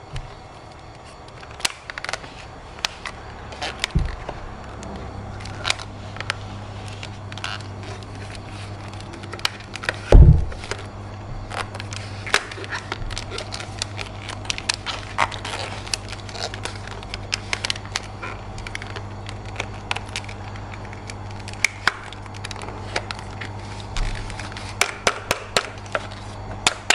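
Scattered clicks and taps of plastic toy parts being handled, with one loud thump about ten seconds in. A low steady hum runs underneath.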